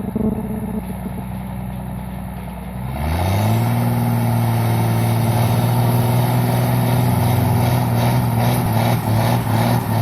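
A heavy vehicle's engine running steadily. About three seconds in it revs up, its pitch climbing, then holds at higher revs, louder.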